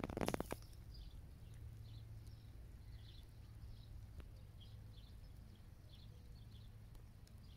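Quiet outdoor background: a low steady hum with scattered faint, short high chirps, after a brief crackling rustle at the very start.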